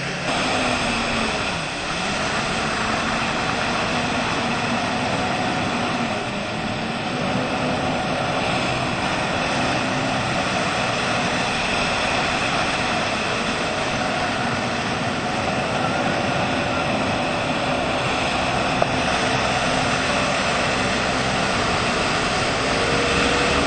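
Motorboat engine running steadily at speed while towing, with rushing water from the wake. The engine's pitch wavers slightly up and down.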